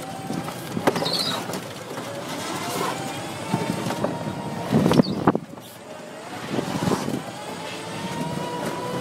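Golf cart climbing a steep concrete cart path: a thin motor whine that drifts in pitch and rises towards the end, over the rumble of the cart. Several sharp knocks and rattles from the cart body, the loudest about five seconds in.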